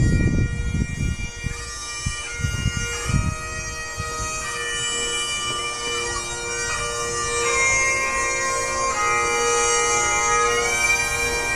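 Bagpipe music: a steady drone under a slow melody. A low rumble dies away in the first few seconds.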